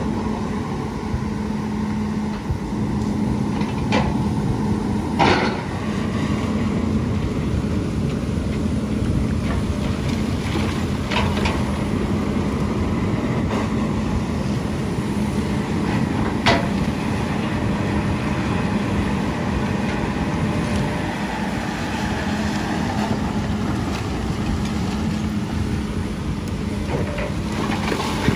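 Heavy diesel machinery running steadily with a constant low hum, broken by several sharp knocks, the loudest just past the middle.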